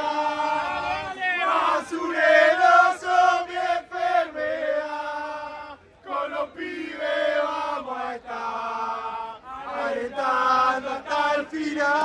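A group of football supporters singing a terrace chant together, many male voices in unison, with a brief break about six seconds in.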